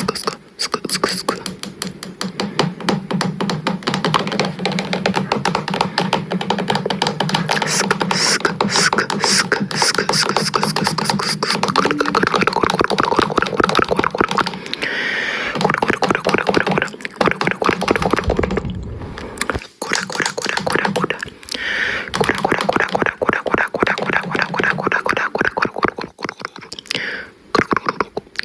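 Fast, dense run of clicks and percussive mouth sounds made close to a microphone, in the manner of beatboxing, with a steady low hum under the first half that drops out about halfway through.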